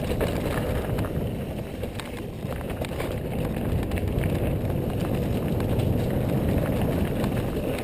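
Mountain bike descending a dirt trail at speed: a steady low rumble of tyres rolling over the ground, with scattered small clicks and knocks from the bike rattling over bumps.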